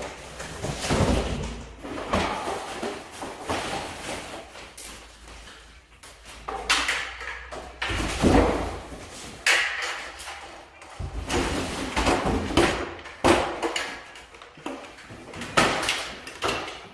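Irregular knocks, thumps and scraping from things being handled and moved while a security camera is being put up, with a door-like thud or two among them.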